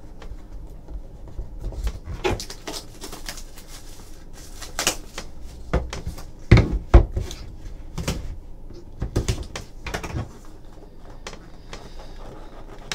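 Hands handling trading cards and a small cardboard card box: irregular taps, scrapes and knocks, the two loudest about six and a half and seven seconds in.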